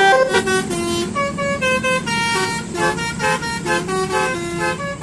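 Telolet bus horn of the Basuri type playing a quick tune of short stepped notes over a steady low hum.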